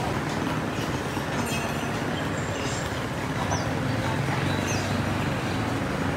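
Steady low rumble of a moving vehicle, with a few brief high-pitched squeaks.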